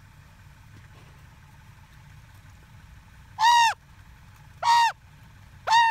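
Common raven calling three times, about a second apart, starting about three and a half seconds in; each call is short and loud, rising then falling in pitch.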